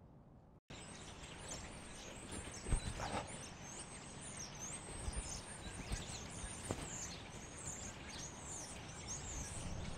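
Outdoor park ambience that cuts in abruptly under a second in: a steady background wash with small birds chirping high and thin throughout, and a few scattered thumps and clicks, the loudest nearly three seconds in.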